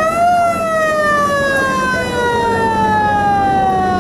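A passenger launch's siren-type horn sounding over a steady low hum and the rush of water: one long held tone that rises briefly just after the start, then slides slowly down in pitch.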